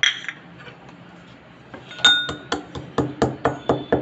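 Mortar and pestle pounding roasted black peppercorns and cloves into powder. There is one clink at the start, then from about halfway through a fast, even run of ringing strikes, about five a second.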